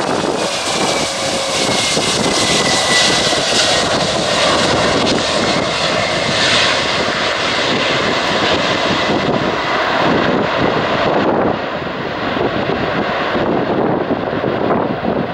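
Cargolux Boeing 747 freighter's jet engines running loud as it rolls out after touchdown on a wet runway. A thin whine falls slightly in pitch over the first few seconds, and the noise eases a little after about eleven seconds.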